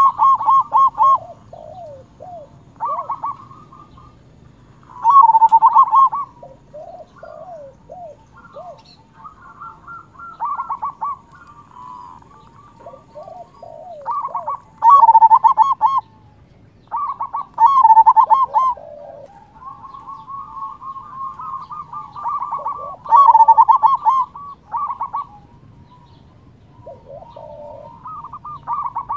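Zebra dove (perkutut) singing: loud, rapid, trilled cooing phrases every few seconds, with softer, lower coos between them.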